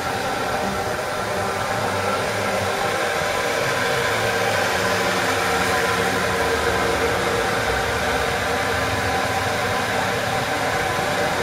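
Electric pumps on the tanks of a Biozone sewage treatment plant running: a loud, steady machine hum with hiss.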